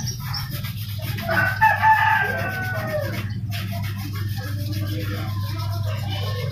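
A rooster crows once, a falling call of about a second starting a little over a second in. Under it are the scratching of a toothbrush scrubbing a circuit board with lacquer thinner and a steady low hum.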